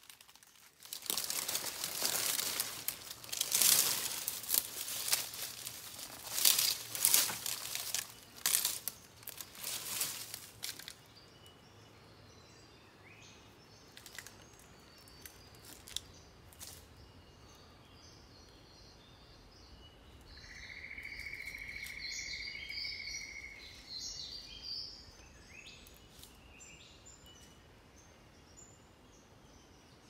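Footsteps crunching and rustling through dry leaf litter and twigs for about the first ten seconds. Then forest birds calling and chirping, with one steady whistle held for about three seconds past the middle.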